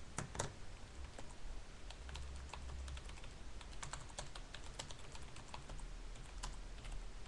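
Typing on a computer keyboard: an irregular run of key clicks, with two louder taps just after the start.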